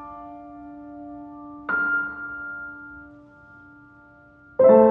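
Background music of slow piano chords, each left to ring and fade: a soft chord struck under two seconds in and a louder one near the end.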